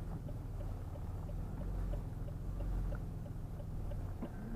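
Vehicle engine idling, heard from inside the cab as a steady low hum with a faint regular ticking.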